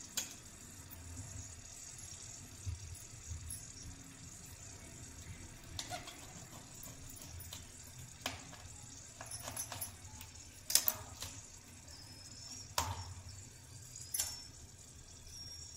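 A cauliflower being broken apart by hand, its leaves and stalks pulled off: scattered sharp snaps and crackles with soft handling rustles, over a low steady hum.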